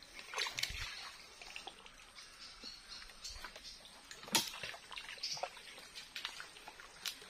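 Legs wading through shallow muddy water and soft mud: irregular splashes and sloshes, with a sharper splash about four seconds in.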